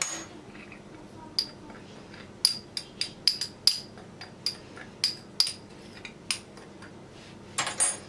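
Metal teaspoon clinking against a small ceramic bowl while stirring powdered sugar and cocoa together: about a dozen light, ringing clinks at an irregular pace, with a brief scrape near the end.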